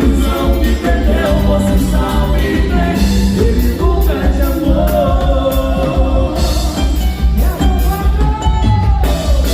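Band music: a song with a singing voice over a steady drum and bass beat.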